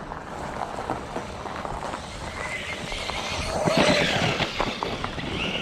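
Brushless Velineon motor of a Traxxas Rustler 4x4 RC truck whining as its tyres spin and scrabble on ice during donuts, swelling louder to a peak about four seconds in.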